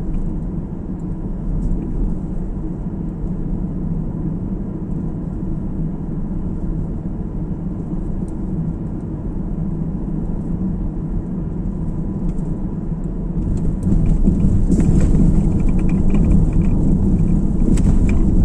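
Steady tyre and engine rumble of a moving car heard from inside the cabin, getting louder about two-thirds of the way through.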